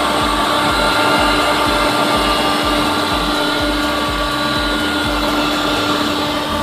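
Domestic flour mill (ghar ghanti) motor running steadily at speed, a loud whirring hum with steady whining tones.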